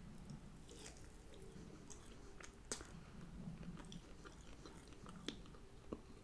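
A person quietly chewing and biting chicken wings close to the microphone, with a few sharp wet mouth clicks and smacks, the loudest about a third of the way in and near the end.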